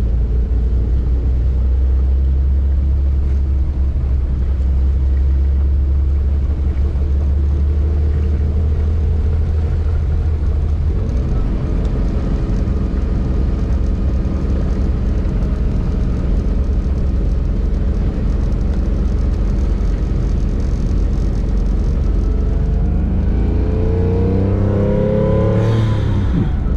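Porsche 911's flat-six engine running steadily from inside the cabin while driving through shallow floodwater, a strong low drone under a wash of road and water noise. The sound shifts about eleven seconds in, and near the end a tone rises and falls.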